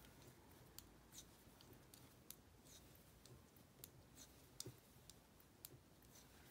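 Faint, irregular clicks of thick 7 mm circular knitting needles tapping together as a run of knit stitches is worked.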